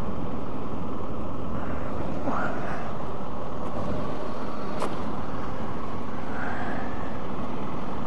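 Motorcycle riding at a steady speed: a steady rush of engine and wind noise on the microphone, with one sharp click about five seconds in.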